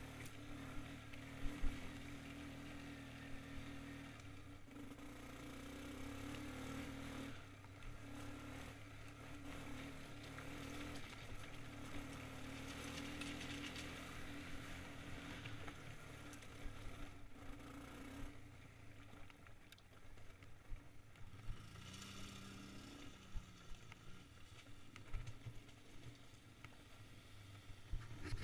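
ATV engine running steadily while riding over a rocky gravel trail, with scattered knocks and rattles from the stones and jolts. The engine pitch shifts briefly about three-quarters of the way through.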